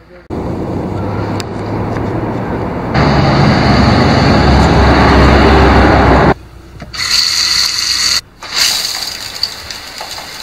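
Road vehicle noise with a low rumble, loudest as a vehicle passes close, cutting off abruptly about six seconds in. Then a shower head spraying water, a steady high hiss with a brief break.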